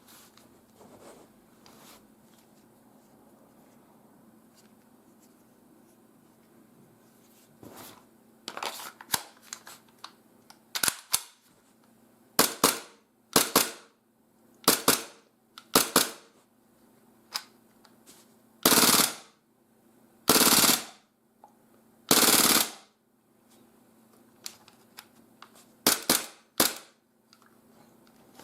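Gas blowback airsoft Glock-type pistol firing, fitted in a Caribe carbine conversion kit: a string of sharp shots. Three of the reports, near the middle, are longer blasts of about half a second each.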